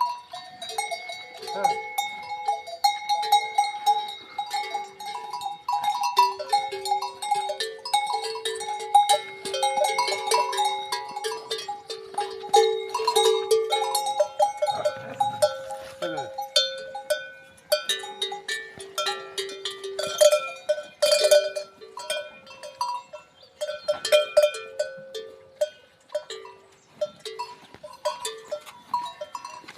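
Livestock bells clanking and ringing irregularly, several bells of different pitches sounding over one another as the animals move.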